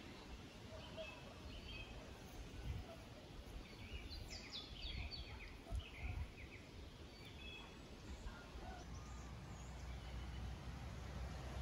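Small birds chirping and singing, with a quick run of short, rapid notes around four to six seconds in, over a steady low background rumble.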